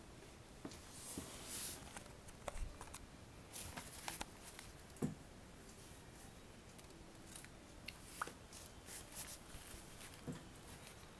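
Faint, scattered scratching, rustling and small clicks as a Siberian kitten claws and paws at a nylon bag, with paper rustling near the end.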